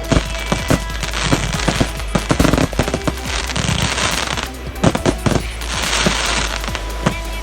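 Airsoft guns firing: many sharp cracks in quick, irregular bursts, over background music.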